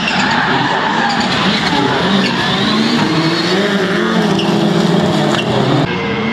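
Several rallycross cars racing close together, their engines revving up and down in overlapping pitches, with sharp pops and crackles. The sound changes abruptly near the end.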